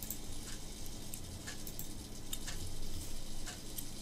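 Light, irregular ticks of a computer mouse clicking at a desk, over a steady low hum.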